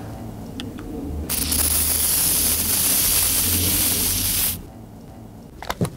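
Aerosol can of Silly String spraying in one continuous hiss for about three seconds, starting about a second in and cutting off sharply.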